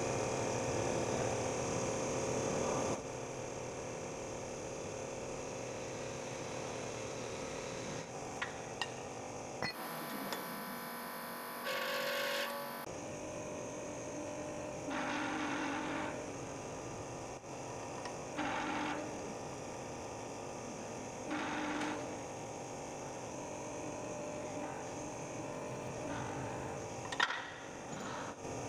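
Steady electrical hum with background hiss, louder for the first few seconds, broken by a few short noisy bursts and light metal clicks as steel parts are handled and pressed on a hydraulic press bed.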